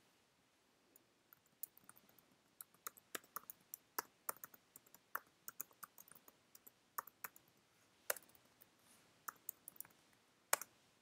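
Typing on a computer keyboard: faint, irregular key clicks, with one louder keystroke near the end.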